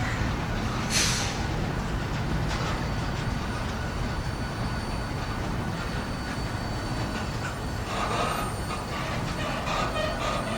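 Freight train cars rolling past with a steady low rumble, a brief hiss about a second in, and wheels squealing in short bursts near the end.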